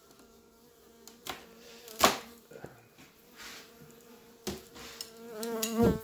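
A winter cluster of honey bees humming steadily in an opened hive, with a few sharp knocks from the hive's wooden parts being handled, the loudest about two seconds in.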